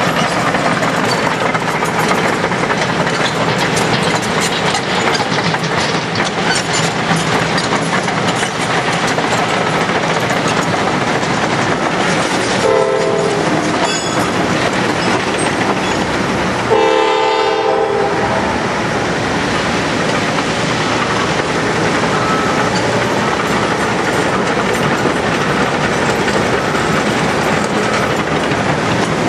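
Diesel freight train rumbling as it approaches, with two blasts on the GE B40-8 locomotive's air horn: a short one about 13 seconds in and a longer one about 17 seconds in.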